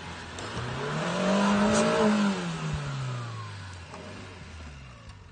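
Suzuki Jimny's engine revving up to a peak about two seconds in, then easing off and dropping in pitch as the little 4x4 drives down off a muddy bank.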